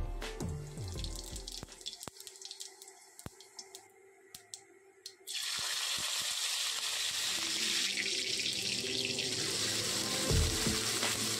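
A water tap turned on about five seconds in, running steadily into a sink.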